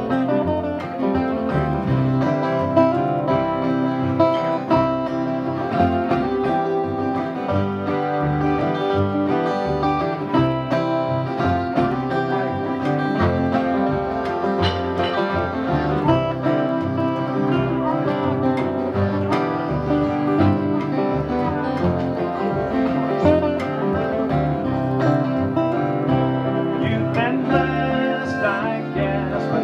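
Instrumental break of a country-style song played by an acoustic string band: acoustic guitars strumming and an upright bass plucked, with a lead melody over them.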